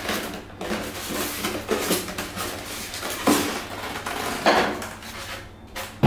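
Polystyrene foam packing being pulled off a portable air conditioner: the foam rubbing and scraping against the plastic casing, with louder scrapes about three and four and a half seconds in.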